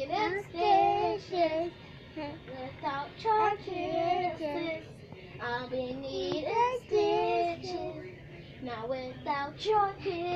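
A young boy singing a pop song unaccompanied, in sung phrases with short breaks, while the backing track plays only in his headphones.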